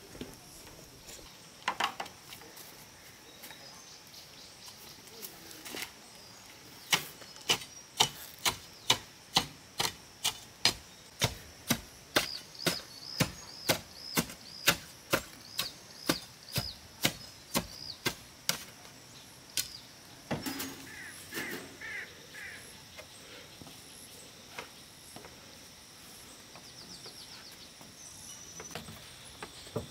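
Repeated sharp strikes, like chopping, about two a second for some twelve seconds, with birds chirping.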